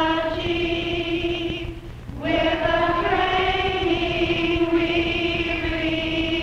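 Choir singing long held notes with vibrato, breaking off briefly about two seconds in and then coming back in.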